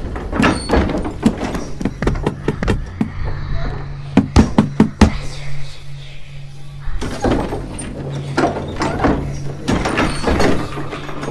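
Repeated knocking and banging on a wooden door, in bursts of sharp thuds, the loudest about four to five seconds in, over a low steady drone.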